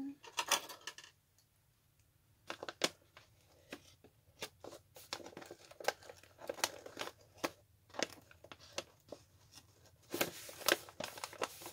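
Gift-wrap paper crinkling and rustling as a soft parcel is handled, with small scissors snipping at the wrapping in a run of short crisp clicks. A brief lull comes about a second in, and the rustling grows louder near the end.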